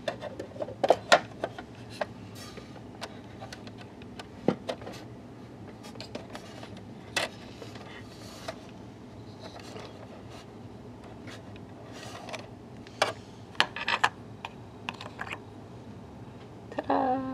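Light plastic clicks and clacks of a toy oven door being opened and a miniature plastic pot being slid out over the oven rack, then its lid lifted off.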